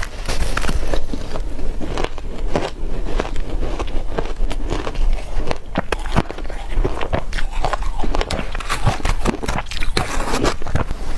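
Ice being bitten and chewed close to the microphone: a dense run of irregular, crackly crunches.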